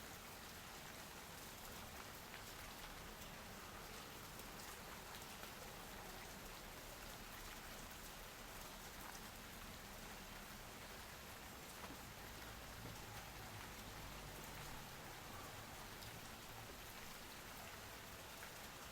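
Faint steady rain falling, an even hiss of drops with scattered single drop ticks.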